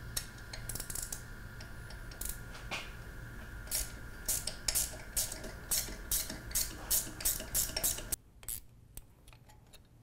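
Low-profile hand ratchet with a 3/16 Allen bit clicking as it backs out a motorcycle fuel-tank bolt: a run of quick metallic clicks, about four a second, in the middle, stopping about two seconds before the end.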